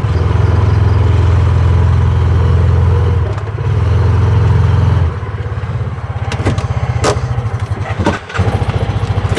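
Small vehicle engine running steadily, then dropping to a lower, rougher note about five seconds in. Several sharp knocks and some clatter come in over it toward the end.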